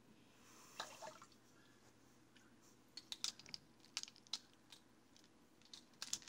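Liquid hydroponic nutrient poured from a bottle into a measuring spoon, a faint trickle about half a second in, followed by scattered light clicks and rattles of a ring of measuring spoons being handled.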